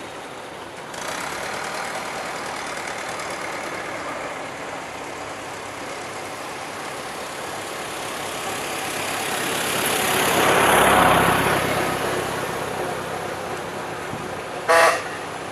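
Vintage cars passing on a road: steady engine noise, with one car growing louder and fading as it drives past about ten seconds in. Near the end comes a short, loud pitched blast.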